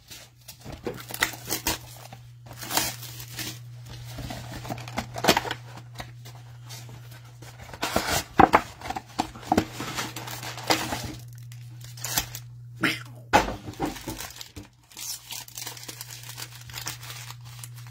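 A sealed trading-card mega box and its packs being torn open: irregular rips and crinkling of plastic wrap and pack wrappers, over a steady low hum.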